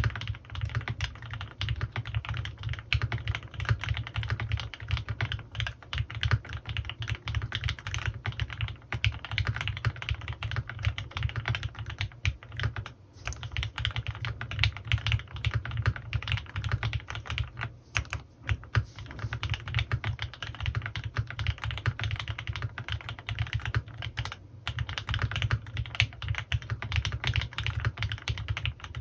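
Fast, continuous typing on a custom CannonKeys Rekt1800 mechanical keyboard with lubed Gateron Ink Black V2 linear switches on 78g progressive springs and PBT keycaps, keystrokes clacking in quick runs broken by a few brief pauses.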